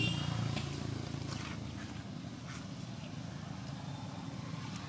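Low engine hum of a passing motor vehicle, fading over the first second or two and then carrying on faintly, with a few faint short clicks.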